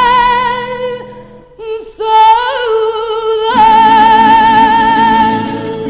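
A fado song: a singer holding long notes in Portuguese that waver in pitch. The accompaniment drops out about a second and a half in and comes back a little after halfway.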